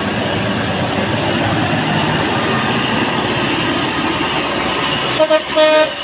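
Heavy diesel trucks running on a steep hill road, a steady engine and tyre rumble as a tanker truck passes close by and a cargo truck climbs toward it. Near the end a vehicle horn sounds two short toots and then a longer one.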